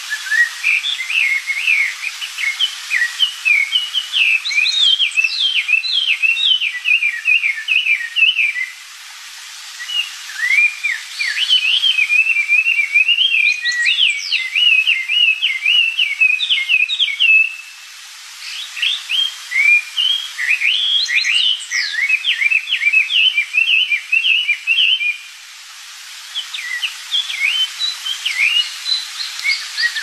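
Chinese hwamei singing a loud, rapid, varied song of whistled notes rising and falling in pitch, in long unbroken phrases that stop for about a second three times.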